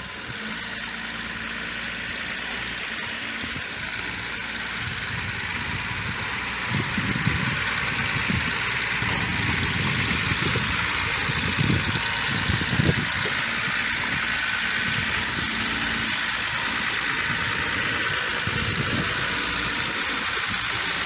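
Caterpillar 3116 straight-six turbo diesel of an M1088 FMTV 6x6 tractor truck running at low speed as the truck crawls over rock, getting louder about six seconds in as it comes closer.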